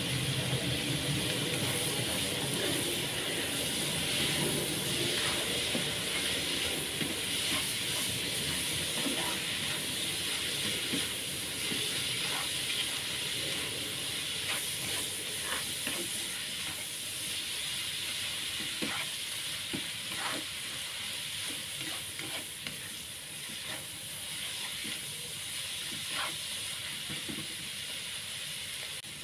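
Intestines and green chilies stir-frying in sweet soy sauce, sizzling steadily in the pan, with scattered sharp clicks and scrapes from stirring.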